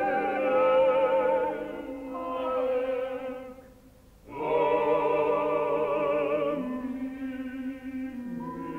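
Operatic-style singing with a strong vibrato, held on long notes. There are two phrases, with a short break about four seconds in.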